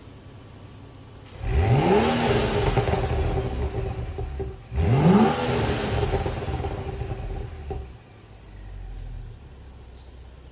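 BMW 435i's N55 turbocharged inline-six revved twice through a resonator-deleted exhaust, with the catalytic converter and muffler kept. Each rev climbs quickly and sinks back to idle over about three seconds, the first about a second and a half in and the second near the middle; it idles before and after.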